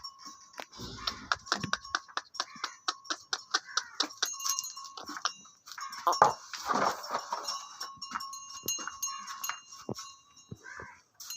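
Dairy cattle in a farm shed: many sharp clicks and knocks, with a louder animal call about six seconds in.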